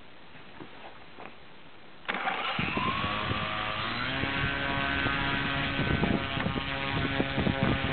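Vortex W4822 electric motor on a test stand starts up about two seconds in, spinning a 14x6 propeller. Its whine rises in pitch for about a second and a half, then holds at a steady multi-tone hum, with uneven gusty rumble from the propeller's air.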